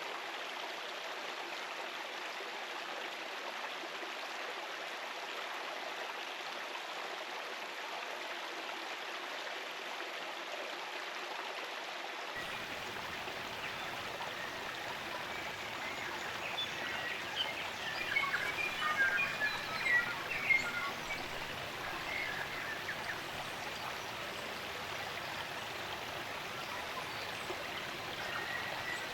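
Spring-fed stream running steadily over rocks. Songbirds chirp in a scattered flurry around the middle, with a few fainter calls near the end.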